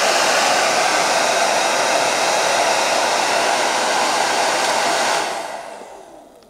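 UNIX UN-1330NA hair dryer blowing with a steady rush of air. About five seconds in it stops and winds down, fading out over the last second or so.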